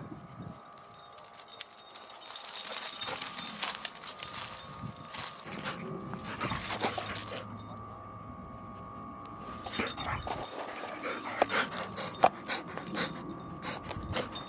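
Sounds of a shepherd-mix dog, with scattered sharp clicks and two stretches of rustling.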